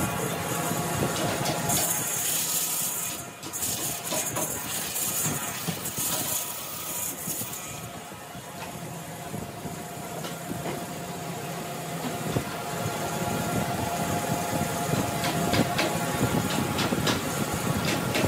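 A workshop machine running steadily, a whining hum with several fixed pitches over a noisy wash. A bright hiss joins for a few seconds in the first half, and rapid sharp ticks come in near the end.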